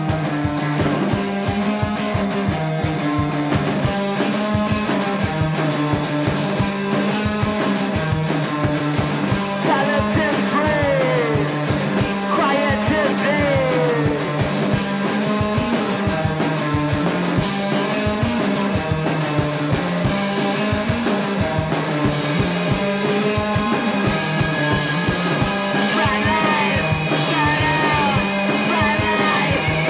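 Rock music soundtrack with a steady beat and a bass line stepping back and forth between two notes, with sliding notes about ten seconds in and again near the end.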